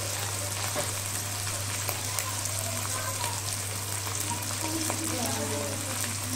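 Ginger-garlic paste and ground spices frying in hot oil in a steel kadai, a steady sizzle with a few small pops, while the masala is fried down (kasha) before the meat goes in. A steady low hum runs underneath.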